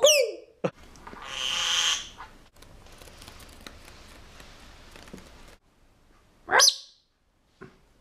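Yellow-collared lovebird calls: a quick falling chirp at the start, a harsh squawk about a second and a half in, and one fast rising call about six and a half seconds in.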